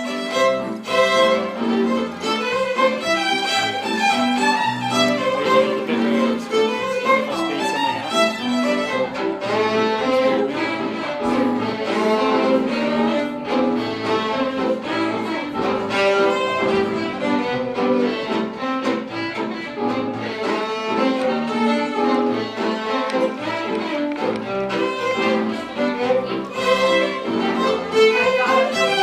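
Background music led by a fiddle playing a brisk tune over a steady beat, with a bowed string accompaniment.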